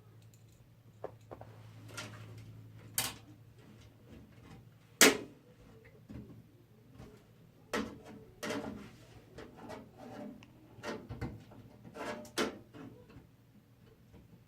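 Irregular knocks, clicks and light rattles of computer parts being handled while a motherboard is fitted into a PC case, the loudest knock about five seconds in, over a low steady hum.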